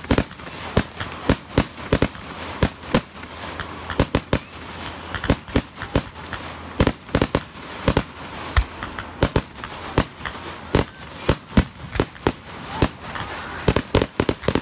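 Fireworks going off: many sharp bangs and cracks at irregular intervals, at times several a second, with a steady noise between them.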